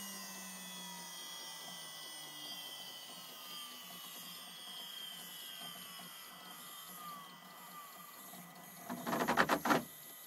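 Water-cooled CNC spindle winding down, its whine falling steadily in pitch. Near the end comes a short loud burst of rapid buzzing pulses: the stepper motors driving the X and Z axes without any program running, set off by electrical pulses leaking through the spindle's bad insulation, a ground fault.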